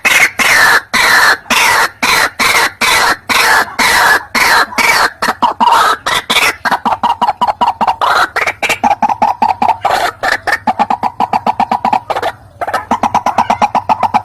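White-breasted waterhen calling: a long, loud run of rapid, harsh repeated notes, about five a second and quickening, broken once briefly about twelve seconds in.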